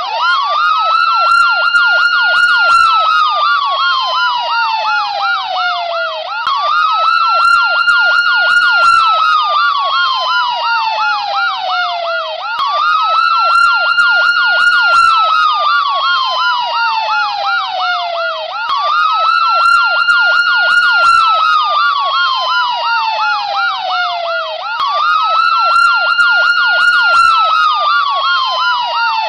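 Ambulance siren ringtone: a wail that rises quickly, holds high, then slides slowly down, repeating about every six seconds, with a rapid warble layered over it.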